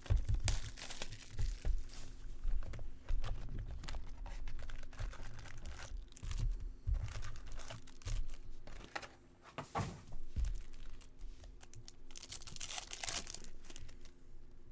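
Foil trading-card pack wrappers being torn open and crinkled by hand, with scattered clicks and low handling knocks. A longer tearing rush comes near the end.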